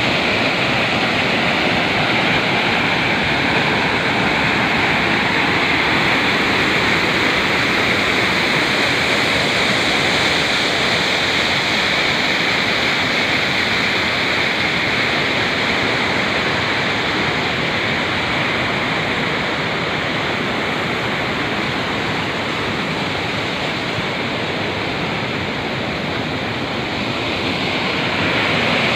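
Small waterfall on a rocky mountain river: white water pouring over boulders in a steady loud rush, easing a little in the middle and swelling again near the end.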